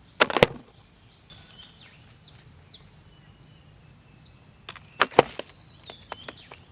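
Two short clusters of sharp knocks, one just after the start and one about five seconds in, with faint high falling chirps between them.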